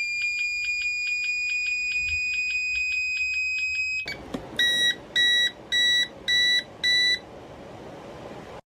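Electronic keypad lock beeping. For about four seconds a high electronic tone with a fast flutter creeps slowly upward, then cuts off. Five short beeps follow, about 0.6 s apart, over a faint hiss.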